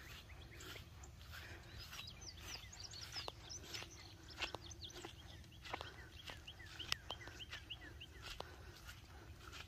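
Faint birdsong: several short chirps and quick trilled series, with a few soft clicks and a low steady rumble of wind on the microphone.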